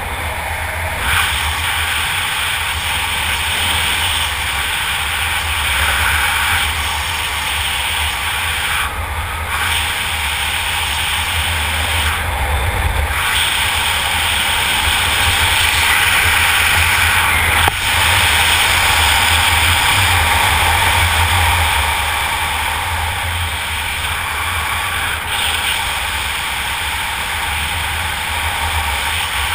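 Steady wind rushing over a helmet-mounted camera's microphone during parachute canopy flight, a deep buffeting rumble with a hiss above it that swells and eases gently.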